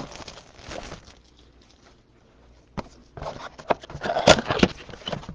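Trading cards being handled: short rustles and sharp clicks of card stock and packaging. A brief lull comes about a second in, then a busier run of clicks and rustling in the second half.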